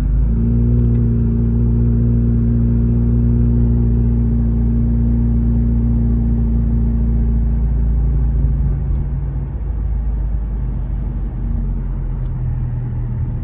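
Car engine and road noise heard from inside the cabin while driving on a wet street: a steady low engine drone at an even pitch. It eases off and fades about eight seconds in as the car slows.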